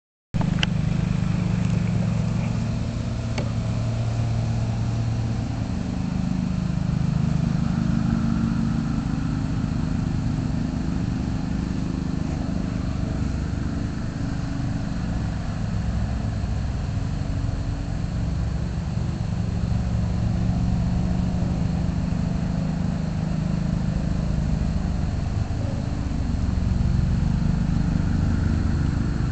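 Riding lawnmower engine running steadily with a low, even drone.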